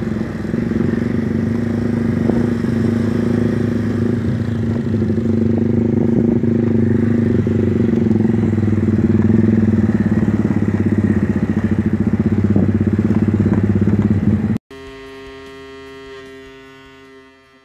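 Motorcycle engine running steadily under way, heard from on the bike. It cuts off abruptly near the end and gives way to a short held musical chord that fades out.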